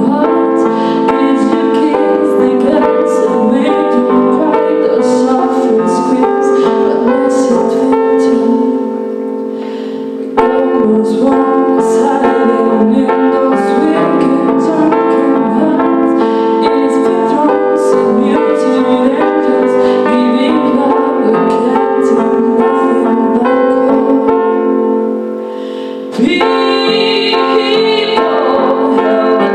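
Live female vocalist singing a slow song to electronic keyboard accompaniment with a piano sound. The music eases off briefly twice, then the voice comes back stronger.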